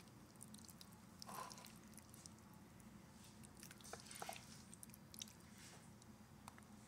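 Faint soft squishing and light clicks of tongs turning steak, shrimp, peppers and onions in a nonstick skillet, over a low steady hum.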